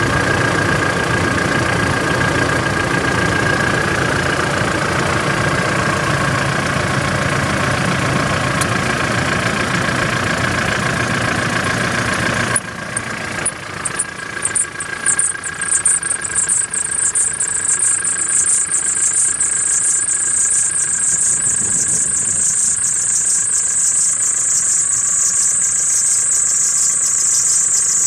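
2013 Chevrolet TrailBlazer 2.8 diesel engine running. Partway through, the low engine noise drops away suddenly and a thin, very high-pitched whistle comes in, holding and slowly falling in pitch: the whistle fault the owner is recording.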